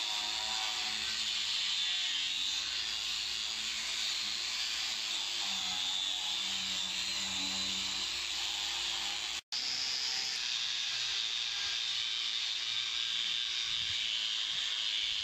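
Angle grinder with an abrasive disc sanding old paint off a metal door to prepare it for repainting: a steady high hiss. The sound cuts out for an instant about nine and a half seconds in.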